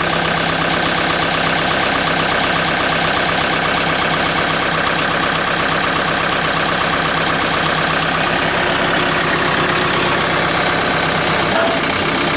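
John Deere 110 tractor loader backhoe's diesel engine running steadily at high idle, warming up after a cold start.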